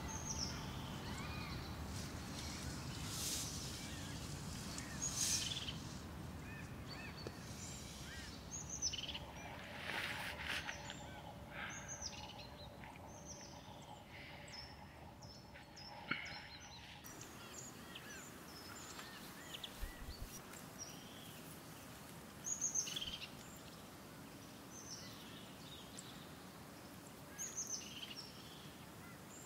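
Forest birds chirping: many short, high calls scattered throughout over a low, steady background hiss. There is soft rustling in the first half.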